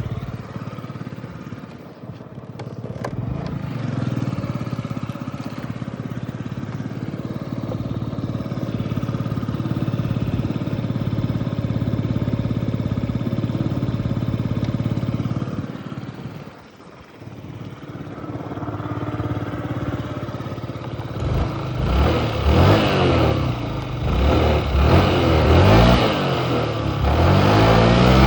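Yamaha Jog 50cc four-stroke scooter engine running steadily, then easing off briefly about two-thirds through. In the last several seconds it revs up and down repeatedly.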